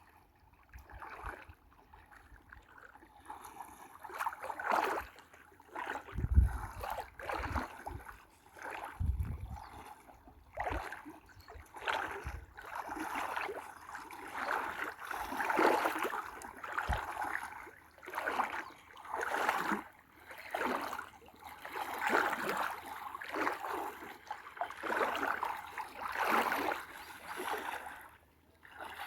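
Water splashing and sloshing in repeated swells, roughly one a second, as if something is moving through the river, with a couple of low bumps a few seconds in.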